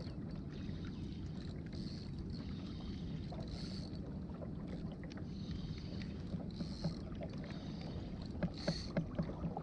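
Kayak on calm water while a fish is played on a bent spinning rod: a steady low rumble of water and hull, a soft hiss that comes and goes every second or two, and a few light knocks near the end.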